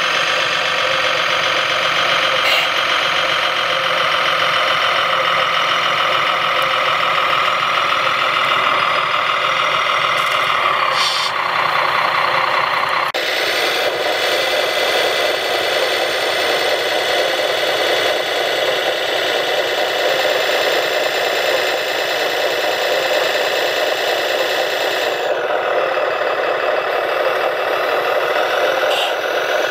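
Radio-controlled construction models running: a steady, engine-like mechanical drone with a whine and little bass. It changes abruptly about 13 seconds in.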